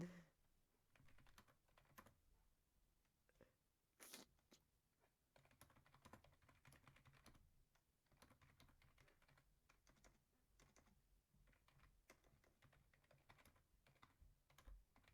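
Faint typing on a computer keyboard: irregular key clicks, with a slightly louder click about four seconds in.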